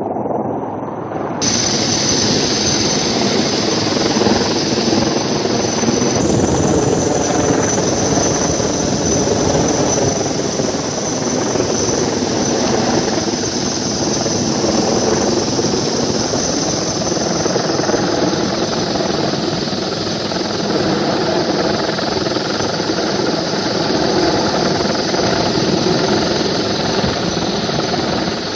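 Helicopter hovering close overhead during a rescue hoist: steady rotor and engine noise with a thin high turbine whine, starting abruptly about a second and a half in.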